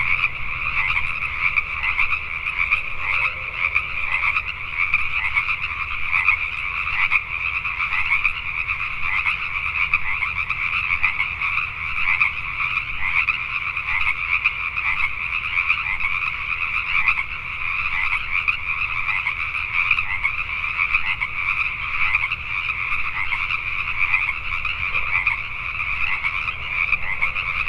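Dense, unbroken chorus of many Pacific tree frogs (Pacific chorus frogs) calling at once, their overlapping calls merging into a steady loud din.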